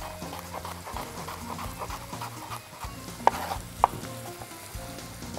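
Onions frying in oil with a faint steady sizzle, and two sharp knife taps on a cutting board about half a second apart, a little past the middle, as a carrot is diced.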